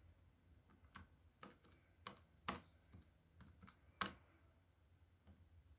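Faint clicks of calculator keys being pressed, about eight irregular taps over some three seconds.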